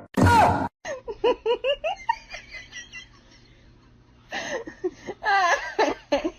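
A person laughing in bouts: a loud burst right at the start, a run of quick pulses, a short lull, then more laughter near the end.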